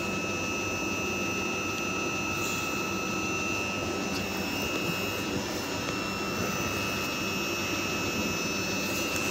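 ScotRail Class 334 electric multiple unit standing at the platform: a steady hum with a constant high whine that stays at one pitch.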